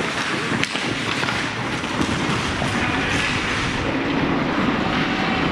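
Ice skates scraping and gliding on rink ice, with a steady rushing noise around them.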